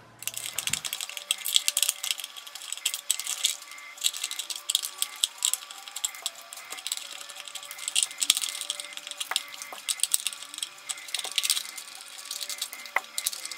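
Small screwdriver turning screws out of a plastic clockwork toy car: a dense, scratchy clicking and rattling of the metal bit working against the screw heads and the plastic body, with a few sharper ticks.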